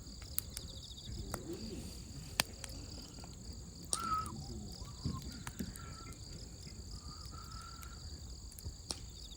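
Wood fire crackling, with a few sharp pops scattered through, over a steady high-pitched background drone.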